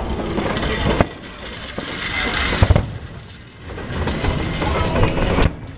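Aerial fireworks shells bursting at a distance: a sharp bang about a second in and a louder one near the three-second mark, with rumbling and crackling in between.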